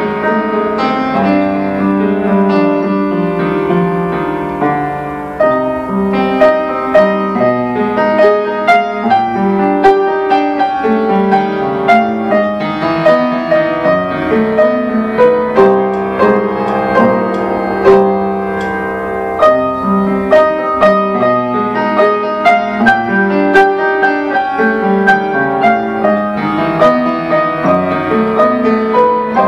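Solo upright piano playing a melody over sustained chords. The first few seconds are held and gentle; from about six seconds in the notes come thicker and more often.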